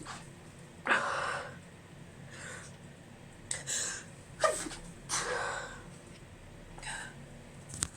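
A woman's stifled sneezes, several in a row with breaths between, the first about a second in and a quick cluster a few seconds later. They are allergy sneezes, set off by a pinch of chhikni sneezing powder.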